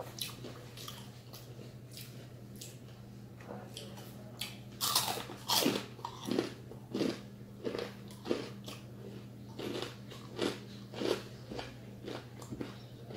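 Close-up crunching and chewing of crispy deep-fried chicken skin. It is quiet for the first few seconds, then about five seconds in comes a run of sharp, irregular crunches, about one every half second to a second, the loudest at the start of the run. A steady low hum sits underneath.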